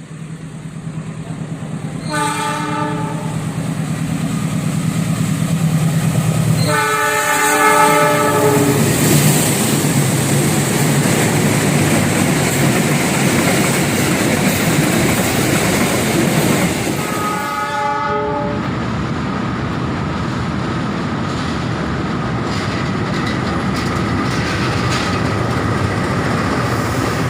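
Diesel locomotive horn sounding three times, a chord of several tones: a short blast about two seconds in, a longer, louder one at about seven seconds, and a third near seventeen seconds. From the second blast on, the train passes close by with a loud, steady rush of wheels on rail.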